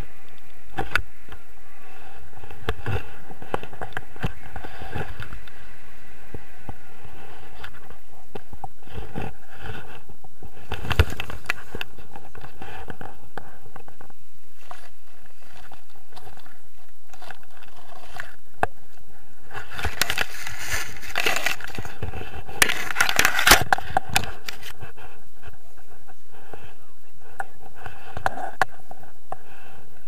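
Wind noise on a hand-held action camera's microphone as a tandem paraglider lands. It is broken by scraping and rustling as the harness, lines and camera drag through tall weeds, with a cluster of loud scrapes about twenty seconds in.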